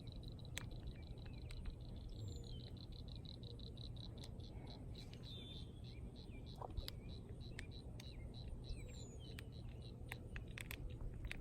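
Faint outdoor ambience: a rapid, even train of high-pitched clicking calls from a calling animal, fading out about halfway, with a few short bird chirps and a low steady rumble.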